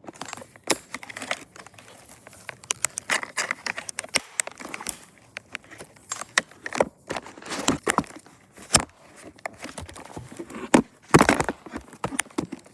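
Crinkling and rustling of plastic packaging being handled, with many sharp clicks and small knocks. The loudest rustle comes about 11 seconds in.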